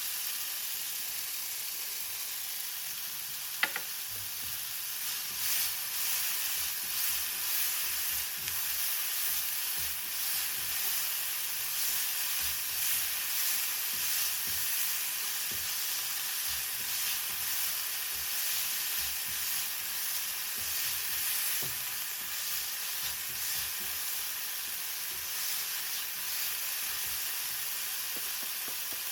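Food sizzling as it fries in a pan, with a spoon stirring it. One sharp knock comes about four seconds in, and the sound swells and fades with the stirring through the middle.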